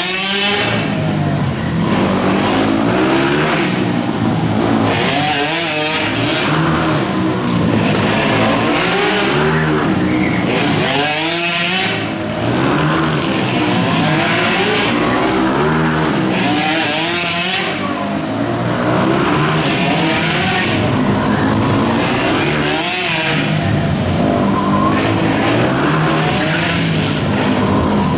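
Several dirt bike engines racing on an indoor flat track, revving up and down again and again as riders shift and brake through the turns. The sound swells and sweeps past as the bikes go by close, about every five to six seconds.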